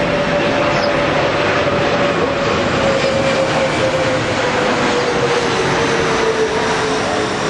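A steady engine drone with one clear tone that slowly falls in pitch, over a constant hiss.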